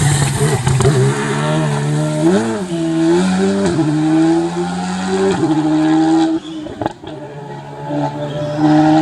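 Rally car engine running hard under load, its pitch rising and dipping with throttle and gear changes. About six and a half seconds in it drops off sharply, then climbs again near the end.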